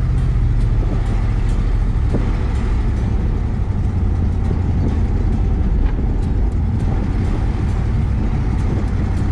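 1970 Plymouth Fury III convertible on the move with its top down: a steady low rumble of engine and road noise mixed with wind rushing through the open car.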